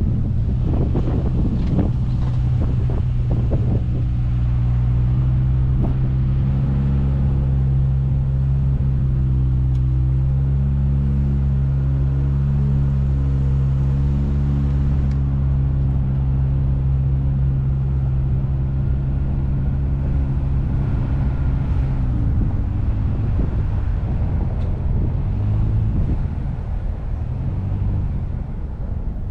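Car engine pulling steadily up a steep grade, its note holding level through most of the climb, then breaking up and easing about three quarters of the way through as the road levels off. Wind buffets the microphone in the first few seconds.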